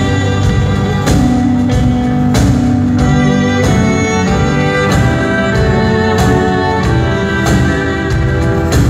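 Live band music heard from the audience in a large arena: guitar and bowed strings playing sustained notes over a steady beat, with a strong accent about every second and a quarter.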